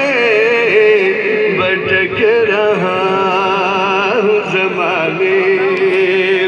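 A man singing poetry in a slow, wavering melody, ending on a long held note.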